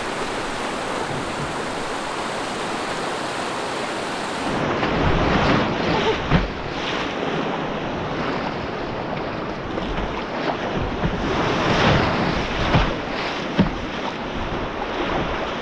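Whitewater of a river rapid rushing steadily. About four and a half seconds in the sound moves close to the water, with irregular splashes of paddle strokes and waves against a canoe hull and wind buffeting the microphone.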